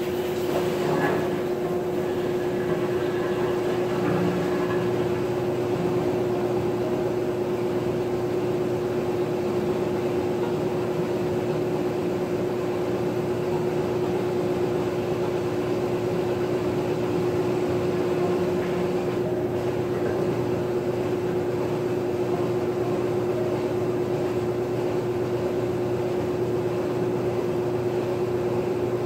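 Maytag top-load agitator washing machine running with a steady hum and a constant mid-pitched tone.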